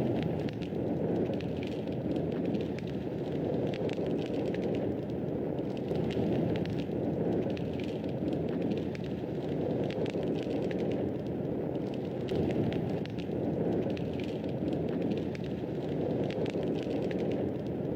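Wood fire burning in a fireplace: a steady low rush of flame with many small, sharp crackles and pops scattered throughout.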